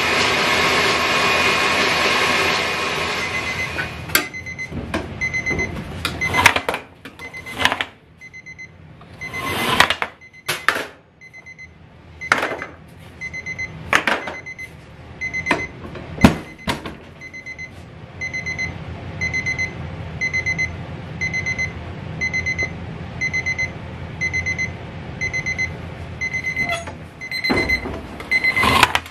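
A loud steady rushing noise with a drone cuts out about four seconds in. Then an electronic baking timer beeps in short repeating groups of high beeps, the alarm for a finished bake, while metal chiffon cake tins clank and knock against the oven deck.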